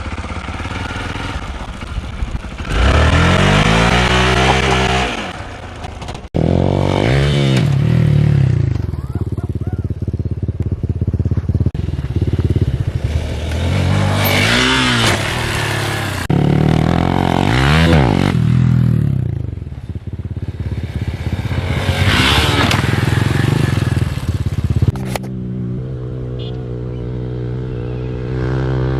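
Hero XPulse 200 4V's single-cylinder engine, running through an aftermarket Norifumi exhaust, revving up and dropping back again and again under throttle. About 25 seconds in it settles to a steadier, lower note.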